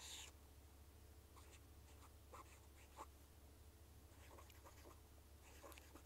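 Faint pen strokes scratching on paper, short and irregular, over a low steady hum.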